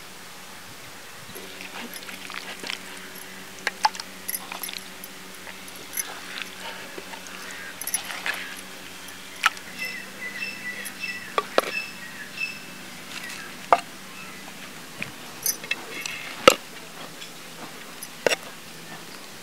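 A serving spoon scooping cooked rice and spreading it in a clay pot, making scattered sharp clicks and knocks against the pot. Under it runs a faint steady hum, with a few short high chirps around the middle and near the end.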